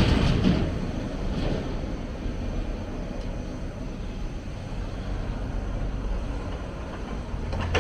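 Hyundai 290 excavator's diesel engine running steadily with a low drone. A louder rush of noise fades out in the first half second, and there is a small knock near the end.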